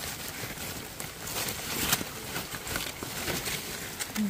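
Fingers scraping and crumbling damp soil and leaf litter to dig out small earthstar puffball mushrooms: a scatter of small crackles and ticks.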